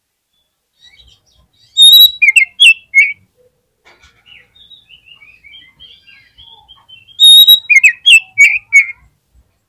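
Oriental magpie-robin (kacer) singing: two loud bursts of song about five seconds apart, each a clear high whistle followed by quick, sharp notes, with soft twittering in between.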